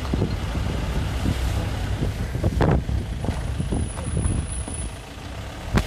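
Vehicle driving along a road: steady low engine and road rumble with wind buffeting the phone microphone, and a single sharp knock near the end.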